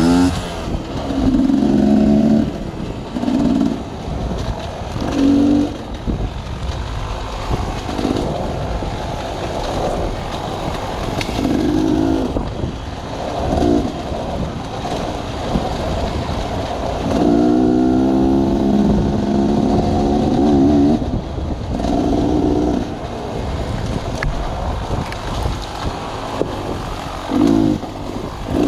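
Sawmill machinery running steadily, with repeated pitched bursts lasting one to four seconds. The longest burst comes about two-thirds of the way through.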